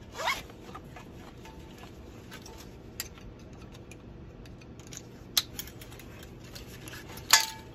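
Nylon harness webbing and buckles being handled: a few sharp clicks of plastic and metal hardware, and a brief metallic clink near the end, over a low steady hum.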